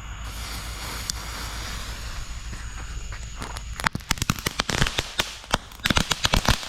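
Crackling ball fireworks: a steady fizzing hiss, then from about four seconds in a rapid string of sharp crackling pops.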